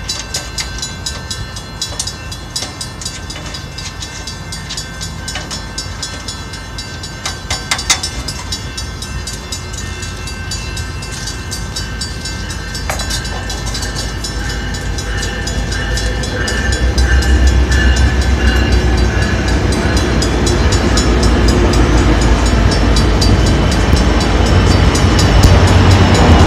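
A heavy passing vehicle's steady rumble with rapid clicking and a few held high tones, growing louder from about two-thirds of the way in.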